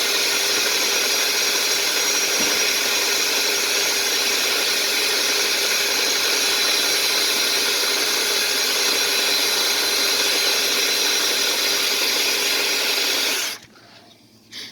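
Drill spinning a chain-knocker descaling head inside a root-clogged drain pipe, reaming out and chewing up the tree roots: a steady whirring run that stops abruptly near the end.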